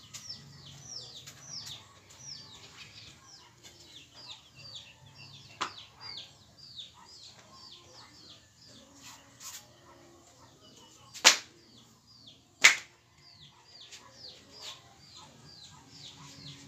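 Birds chirping, a steady run of short downward-sliding chirps at about three or four a second. Two loud sharp cracks come about a second and a half apart a little past the middle.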